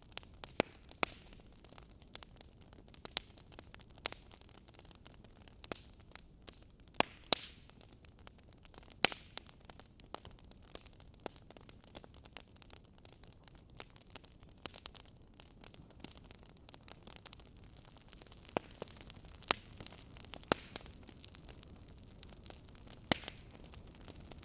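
Wood fire crackling: scattered sharp pops and snaps at irregular intervals over a faint steady hiss.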